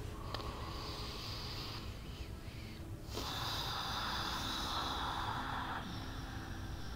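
Two slow, audible breaths close to the microphone: a softer one at the start and a longer, louder one from about three seconds in, over a low steady background hiss.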